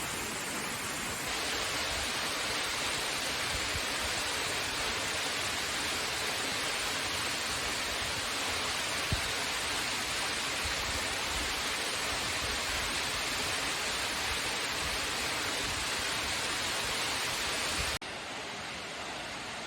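Waterfall rushing steadily. The level jumps up about a second in and drops near the end.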